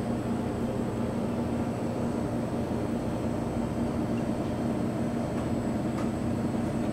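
Steady mechanical drone of commercial kitchen equipment, with a low hum that holds unchanged throughout.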